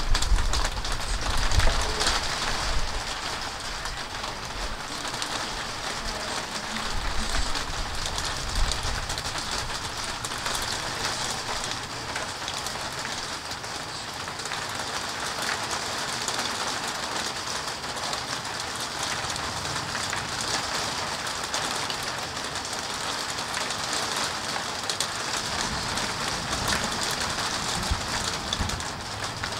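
Steady rain falling during a thunderstorm, an even hiss, with bouts of low rumbling near the start and again near the end.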